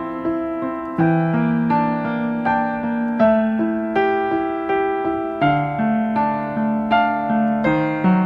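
Calm background piano music: a slow melody of single notes and chords, each struck and left to fade.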